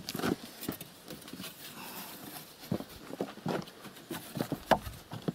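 Irregular footsteps and knocks on wooden deck boards, a dozen or so short knocks spread unevenly.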